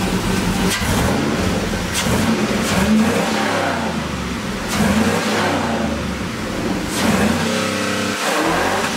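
A 5.3-litre LS V8 in a 1988 Chevrolet Caprice, running through modified truck headers, an H-pipe and Thrush Turbo mufflers, revved from idle several times. It gets louder with each blip of the throttle and drops back in between.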